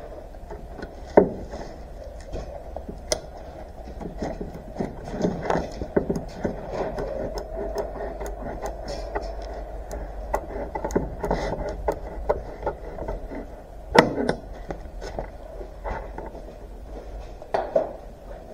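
Workbench handling noise: a sheet of paper gasket material rubbing and sliding on a wooden bench, with scattered sharp knocks of tools or parts being set down, four of them louder.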